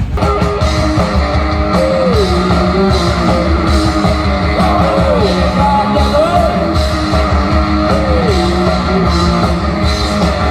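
Loud rock music with guitar and drums, a sliding note falling in pitch every couple of seconds over a steady beat.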